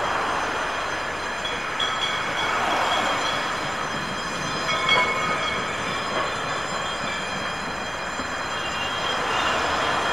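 Cars passing over a level crossing while a vintage tram crosses the road, with thin high squeals from the tram's wheels on the rails coming and going.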